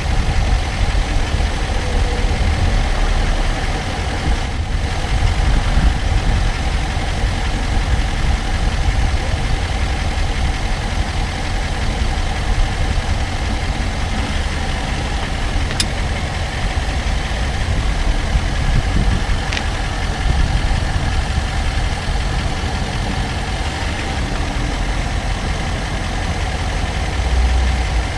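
Range Rover Sport SDV8's diesel V8 running with a steady low rumble and a faint steady hum, with two faint ticks partway through.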